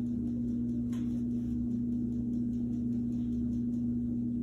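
Steady low electrical hum: one even tone with fainter lower tones beneath it, unchanging throughout, with a faint click about a second in.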